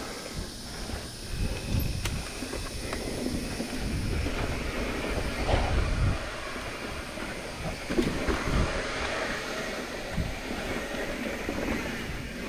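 Mountain bike rolling over a dirt singletrack: a steady rumble and rattle from the tyres and bike over the bumps, with a few louder jolts.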